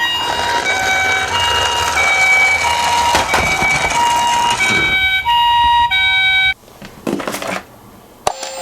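Toy ambulance minicar's electronic two-tone siren, alternating a higher and a lower tone in the Japanese ambulance pattern. It cuts off abruptly about six and a half seconds in, followed by a short rattle and a click near the end.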